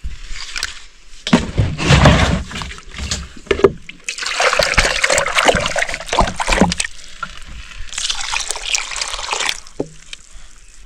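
Water pouring and sloshing in two spells of a couple of seconds each, after a few seconds of knocks and handling noises.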